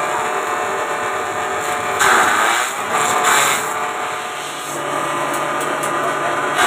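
Belt-driven grass chopper running on a half-horsepower electric motor with a steady hum, its blades cutting green fodder stalks fed in by hand. The chopping swells louder about two seconds in and again around three and a half seconds.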